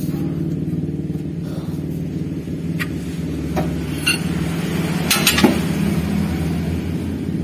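A steady low mechanical hum, like a running engine, under a few sharp metallic clicks and clinks of a socket wrench being worked on an L300 diesel's crankshaft pulley bolt. The loudest cluster of clinks comes about five seconds in.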